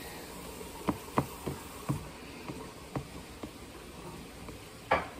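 Metal fork clicking and scraping in an instant noodle cup while stirring and picking up noodles: a series of light clicks, with a louder one near the end.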